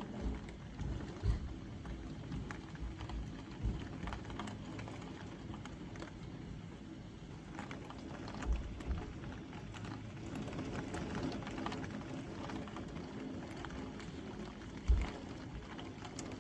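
Super heavy rain falling steadily, with a few short low thumps breaking through, the loudest near the end.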